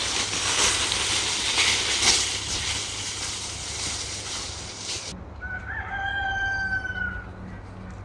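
A loud, rough, crackling noise that cuts off abruptly about five seconds in, then a rooster crows once: a single call of about two seconds that opens with a short rising note and trails slightly downward at the end.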